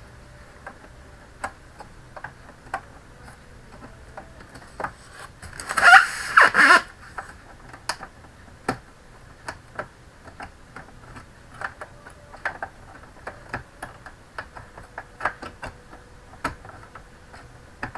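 Scattered light clicks and taps of hands fitting an SSD and its cable into an opened all-in-one PC. About six seconds in there is one louder scraping squeak in two quick pulses, as parts are pushed into place.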